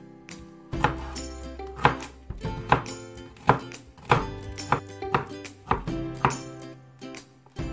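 Kitchen knife chopping a red bell pepper on a wooden cutting board: the blade knocks against the board in a run of strokes, about one or two a second, over background music.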